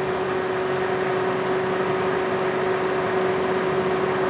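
Steady mechanical hum with one constant mid-pitched tone running through it, like a running motor or fan.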